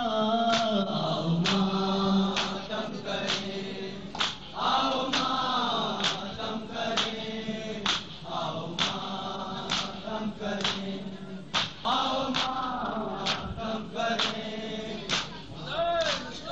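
Men chanting a noha refrain together, with matam chest-beating: sharp hand slaps on chests in a steady beat, a little under one a second.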